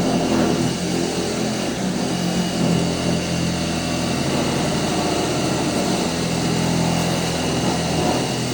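Angle grinder running steadily as it cuts sheet metal, stopping suddenly at the very end.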